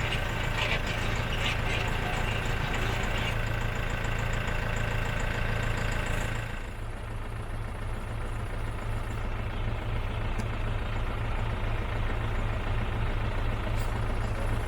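Tractor diesel engine running steadily. About six and a half seconds in, the higher clatter drops away and it carries on at a lower, idle-like note.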